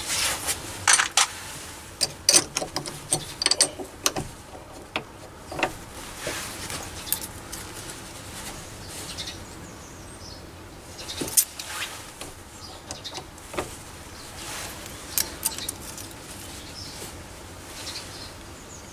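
Irregular metal clicks and clinks of tools and parts on a mini lathe's toolpost as the parting tool's height is reset, because it sat a bit high of centre. The clicks come thick for the first few seconds, then sparser.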